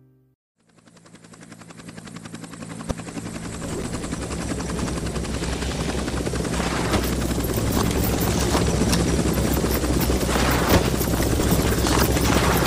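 UH-1 Huey helicopter's rotor beating in a steady rapid chop, fading in about half a second in and growing louder over the next few seconds before holding steady.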